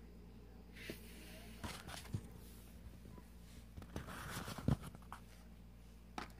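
Quiet small room with a steady low hum and a few faint rustles and soft clicks, the loudest a sharp click about three-quarters of the way through.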